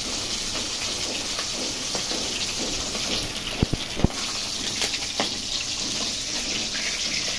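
Hilsa fish steaks frying in hot oil in a karahi, a steady sizzle. A couple of sharp clicks come about four seconds in as a metal spatula touches the pan.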